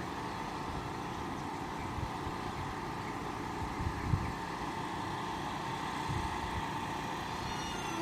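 Steady rumble and hum of a train running, with a few low knocks about four seconds in.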